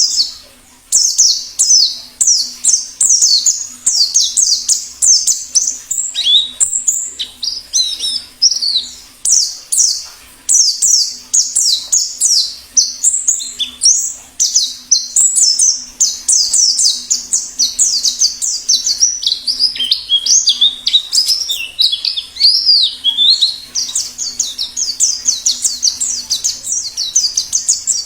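White-eye (pleci) singing a long, fast chattering song in the wild 'ngalas' style: quick, high, downward-sweeping notes strung together almost without a break.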